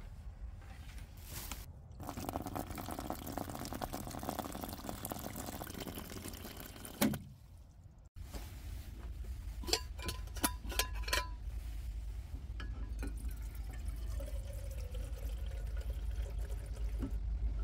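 Water running from the spigot of a plastic water jug into a collapsible sink, a steady splashing stream that ends with a knock about seven seconds in. Later a few sharp clicks and knocks as a small brass kettle is handled and filled at the spigot.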